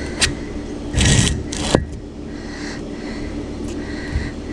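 A metal wire grill grate scraping and rattling twice in quick succession about a second in, as it is set down on concrete blocks. A steady low hum runs underneath.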